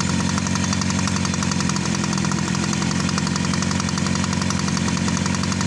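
A small engine idling steadily, a fast, even beat with no change in speed.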